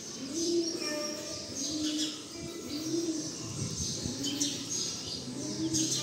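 Birds calling: low, rounded cooing calls repeated about once a second, with high chirping over them.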